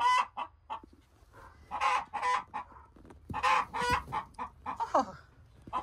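A black hen in a nesting box screaming: about four harsh bursts of squawking calls with short pauses between, the last ones sliding down in pitch.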